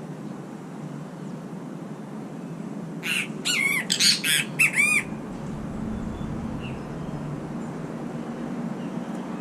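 A bird giving a quick series of loud calls, about six notes over two seconds, starting about three seconds in, over a steady low background hum.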